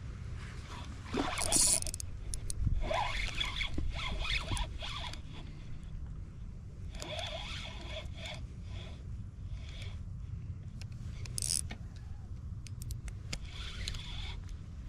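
Steady low wind rumble on the microphone, with short bursts of scraping and rattling from handling gear, several times.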